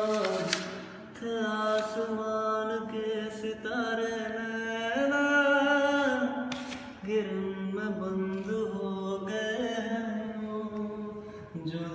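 A house painter singing a slow song, holding long notes that slide between pitches.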